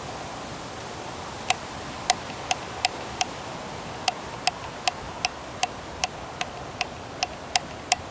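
Sharp clicks repeating at about two to three a second, with one short break, starting about a second and a half in, over a steady hiss.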